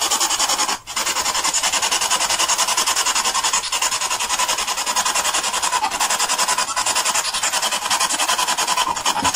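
Spirit box (ghost box) radio sweeping through stations: a steady hiss of static that pulses evenly about eight times a second, with a brief dropout about a second in.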